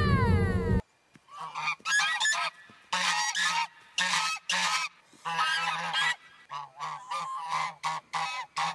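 Mute swans giving a run of short hoarse honking calls in quick bursts with brief gaps. It opens with the end of a wailing cat call, which falls in pitch and cuts off under a second in.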